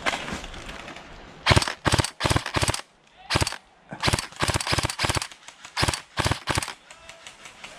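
Airsoft guns firing in short, rapid bursts, about ten bursts of sharp clacks over several seconds, in an exchange of fire that leaves two opponents hit.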